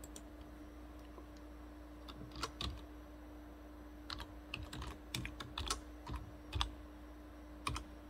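Typing on a computer keyboard: about a dozen irregular keystroke clicks in short runs, starting about two seconds in and stopping near the end.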